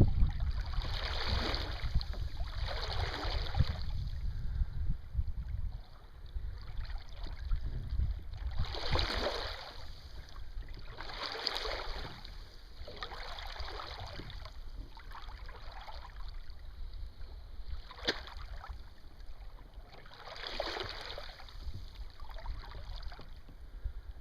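Water swishing and splashing around a kayak under sail, in separate washes about a second long every few seconds. Low wind rumble on the microphone for the first six seconds.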